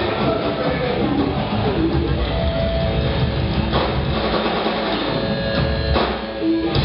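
Live rock band playing loud: electric guitar and drums, with several hard drum hits.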